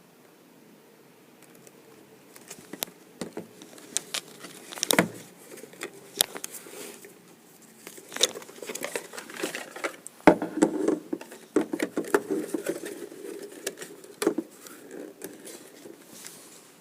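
Watch packaging being handled during an unboxing: an irregular run of small clicks, taps and rustles, with sharper knocks about five and ten seconds in.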